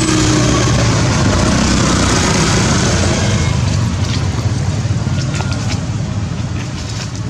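A motor vehicle engine running close by, steady and loud at first and easing off gradually, with a few faint clicks in the second half.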